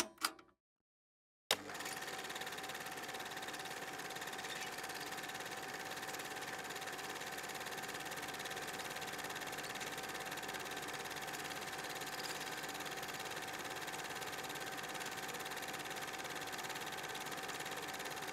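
A steady, dense mechanical drone of urban machine noise, with a held mid-pitched tone running through it, cuts in abruptly about a second and a half in and continues unchanged.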